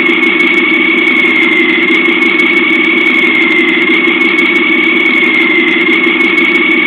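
Sampled truck engine idling, played back by a TBS Mini programmable sound module through a small loudspeaker: a steady low engine hum with a high tone held over it.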